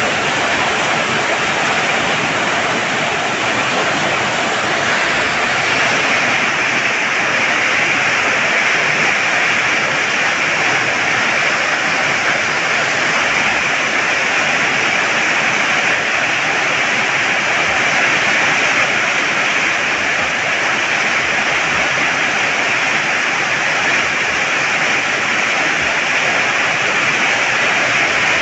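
Heavy rain pouring down: a loud, steady, dense hiss with no change in strength.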